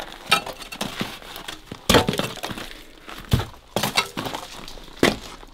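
Feet crunching and scraping through loose debris, with clinking and several sharp knocks at irregular intervals, the loudest about two seconds in.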